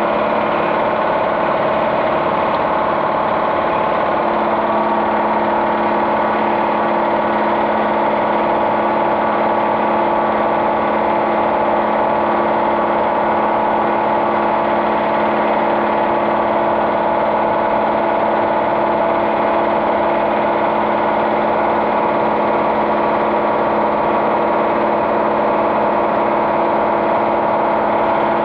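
A machine running steadily: an even hum with several held tones that do not change.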